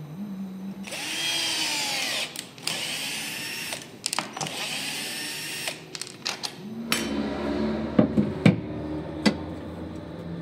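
Cordless drill driving screws through a steel bracket into a melamine panel, its motor whining in several bursts of a second or two over the first half. In the second half a steady low hum runs under a few sharp clicks.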